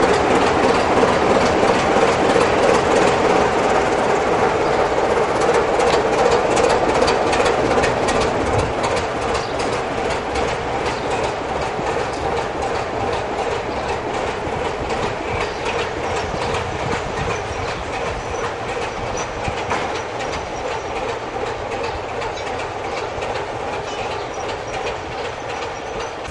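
BR Class 24 diesel locomotive D5061 pulling a train away, its Sulzer six-cylinder diesel engine running under power with a steady drone and the clatter of wheels over the rails. The sound fades slowly as the train draws away.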